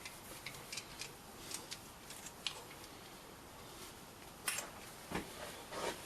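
Small metal parts and hand tools being handled on a workbench: scattered light clicks and knocks, with a few louder knocks in the last couple of seconds.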